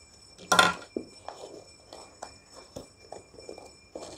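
Cardboard shipping box being slit open with a box cutter and its flaps pulled open: a short, loud rip of packing tape about half a second in, then light scrapes and rustles of cardboard.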